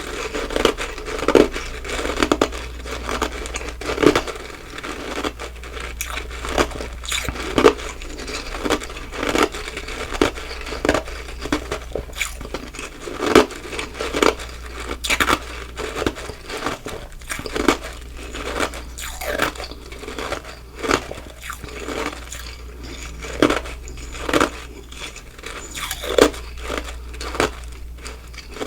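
Close-miked chewing of crunchy ice: a steady run of crisp crunches, roughly one or two a second, over a faint steady low hum.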